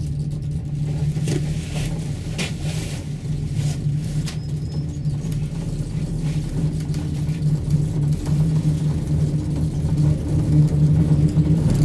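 Steady low hum and rumble inside a moving gondola cabin riding along its cable, with a few brief rattles in the first few seconds.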